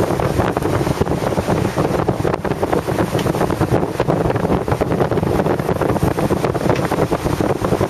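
Wind noise on the microphone of a camcorder carried on a moving bicycle: a loud, rough rushing that flutters rapidly in level.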